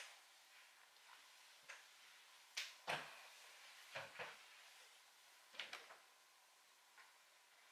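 Handling of a wooden-handled folding knife: a scatter of sharp clicks and light knocks, the loudest two close together about three seconds in, fitting the knife being set down on the table.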